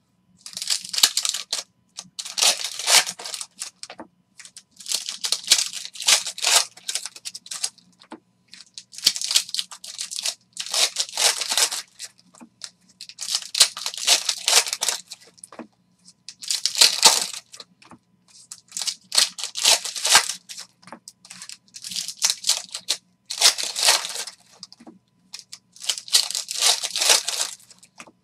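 Foil wrappers of Metal Universe hockey card packs being torn open and crinkled, one pack after another. About ten short, crackly bursts come a second or two apart.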